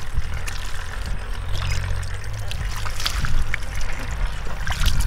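Wet splashing and squelching of hands groping through shallow muddy water and mud, with many short irregular splashes and drips, over a steady low rumble.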